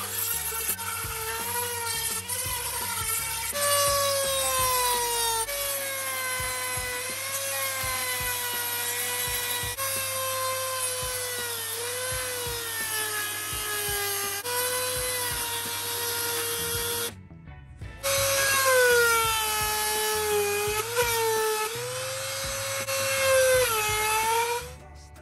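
A small handheld rotary tool's motor whining at speed while a grinding stone or sanding band works a rough surface. The pitch sags and recovers as the bit is pressed in. The whine jumps abruptly a few times and drops out briefly near the end.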